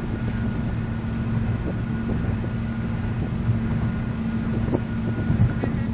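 Steady road and engine drone inside the cabin of a moving car, with a low hum held level throughout. A few light clicks about five seconds in.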